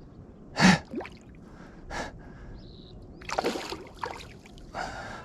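A man's sharp breaths and gasps of effort, close on a clip-on microphone, while he fights a hooked bass: four short bursts, the first and loudest under a second in.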